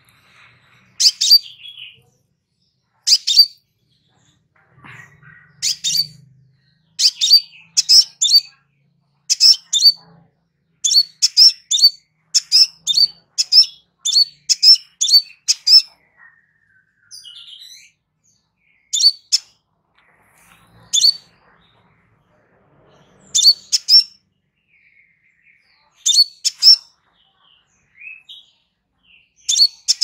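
Caged crimson sunbird giving sharp, very high chip calls, singly and in quick clusters of two to four. It speeds into a rapid run of chips in the middle, then spaces them out again.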